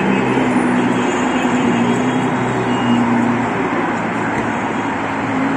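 Steady traffic noise from a busy city road: a dense rumble of passing cars, with a low drone running through it.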